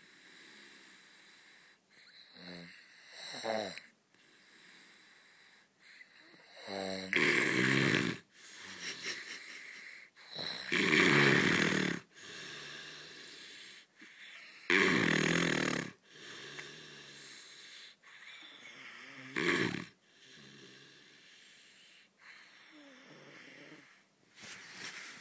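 A man snoring in his sleep: a series of rasping snores every three to four seconds, some much louder than others.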